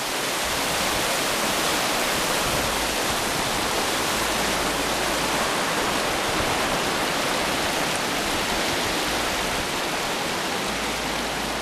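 Fast-flowing mountain creek: a steady rush of white water over rocks, holding a constant level throughout.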